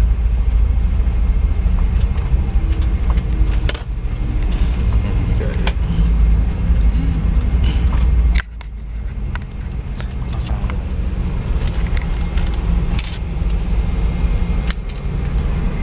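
Airliner cabin during the landing rollout: a loud low rumble of the engines and the wheels on the runway, with light cabin rattles. The rumble drops off abruptly about eight seconds in, leaving a quieter steady hum as the plane slows toward taxi.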